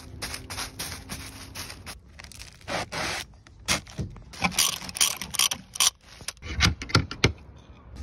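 Dry reed thatch being worked by hand and with thatching tools: a run of irregular scrapes and rustles of stems, with several sharp clicks near the end.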